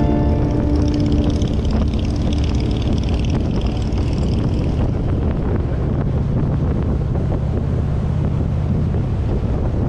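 Wind rushing over the microphone of a moving motorcycle, with the motorcycle's engine running as a steady low rumble underneath.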